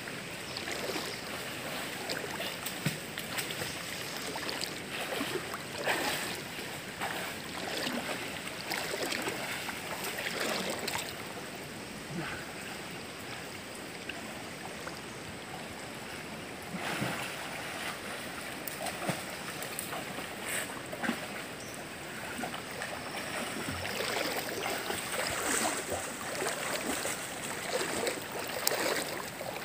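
River water splashing and sloshing irregularly, with sharper splashes every few seconds.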